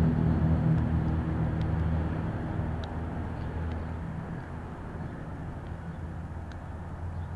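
A steady low rumble with a hum that slowly fades. Over it come a few faint, scattered clicks from a lock pick working the pins of an American Series 10 padlock under tension.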